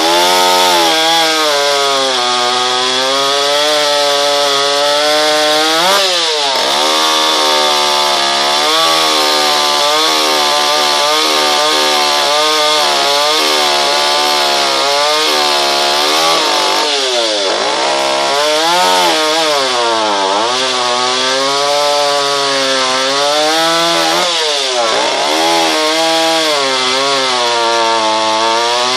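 Vintage Mondial 657 two-stroke chainsaw cutting through a log, its engine note sagging under load and climbing again over and over. The chain is worn out but still cuts.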